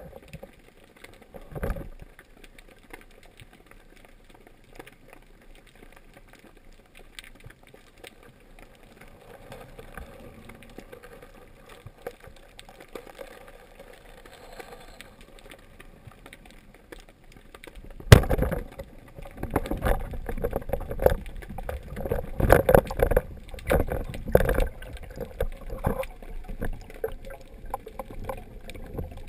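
Faint underwater water noise, then about two-thirds of the way through a single sharp crack of a band-powered speargun firing. It is followed by rapid, irregular knocking and rattling of the spear shaft as a speared mullet struggles on it.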